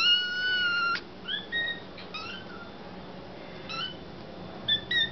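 Kittens meowing loudly to beg for their kitten milk: one long, high cry lasting about a second, then a string of shorter high meows.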